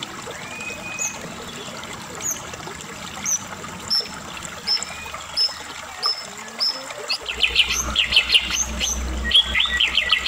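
White-rumped shama (Medan murai batu) singing. A short, high note with a downward hook is repeated about once a second. About seven seconds in, it breaks into a louder, fast run of rapid notes.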